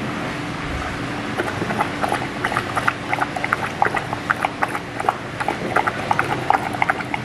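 Two golden retrievers lapping up ice-cold water from a stainless steel bowl: a quick, irregular patter of wet laps, several a second, starting about a second in.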